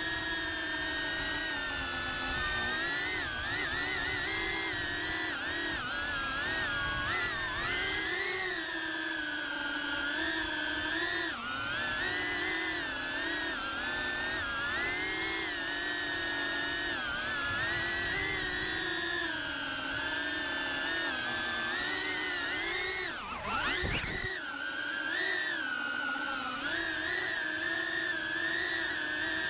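Cinewhoop FPV drone's brushless motors and ducted propellers whining, the pitch wavering up and down as the throttle is worked. Late on, the pitch drops sharply and then climbs straight back as the throttle is chopped and punched.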